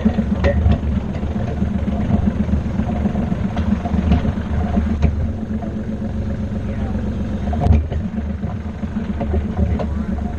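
Tractor engine running steadily while it tows a wagon loaded with dirt, with the wagon rattling and knocking as it rolls; one louder knock about three-quarters of the way through.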